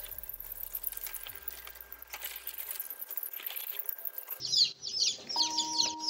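Newly hatched chicks peeping, faint at first, then loud, rapid high cheeps from about four seconds in, over background music with held notes.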